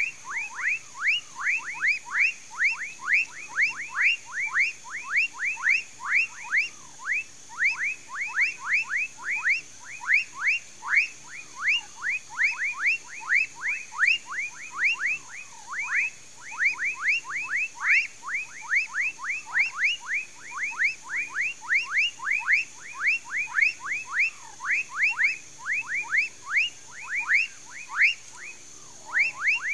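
Frogs calling in a swamp: a continuous run of short notes, each sliding quickly downward, several a second, over a steady high-pitched hum.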